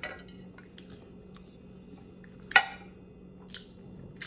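Close-miked wet mouth clicks and smacks from licking sauce off the fingers after eating wings: a few short sharp sounds, the loudest about two and a half seconds in, over a faint steady low hum.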